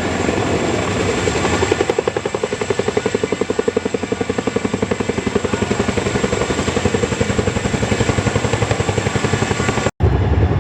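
Boeing CH-47 Chinook tandem-rotor helicopter flying low, with a steady rotor and engine sound. From about two seconds in, its rotor blades beat in a fast, even rhythm. The sound cuts out abruptly for a moment near the end.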